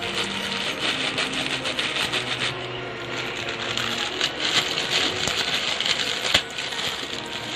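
Stir-frying in a wok: a metal spatula scraping and tossing food in the pan over a steady sizzle, with a sharp knock near the end, under background music.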